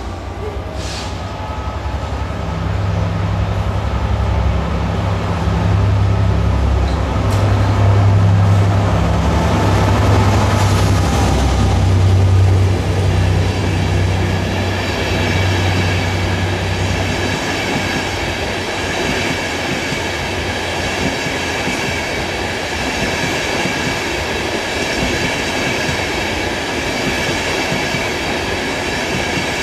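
Class 67 diesel-electric locomotive passing close by, its V12 two-stroke engine making a loud low drone that swells to a peak and fades after about 17 seconds. Then the Mk4 passenger coaches roll past with wheel noise and a steady high-pitched ringing from the wheels.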